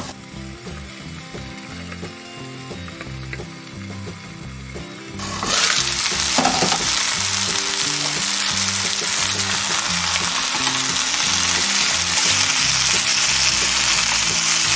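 Marinated pork rib steaks sizzling in a frying pan, the soy glaze cooked down. The sizzle is muffled under a glass lid for the first five seconds, then turns loud and bright about five seconds in, when the lid comes off.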